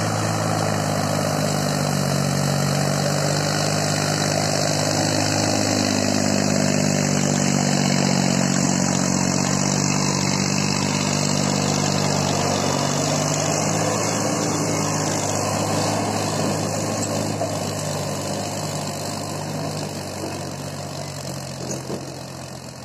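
Sonalika tractor's diesel engine running steadily with a loaded soil trolley hitched behind, its note wavering a little, then fading near the end as it pulls away.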